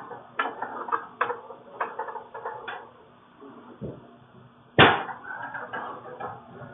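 Knocks and bumps of a refrigerator being manhandled on a staircase, with one loud bang a little under five seconds in.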